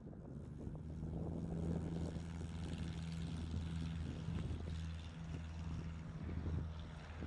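Single-engine propeller light aircraft on its takeoff run, its piston engine and propeller giving a steady low drone; it lifts off near the end.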